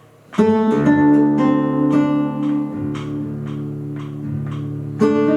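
Guitar chord strummed about half a second in and left ringing, then a second chord struck near the end, over a metronome ticking about twice a second.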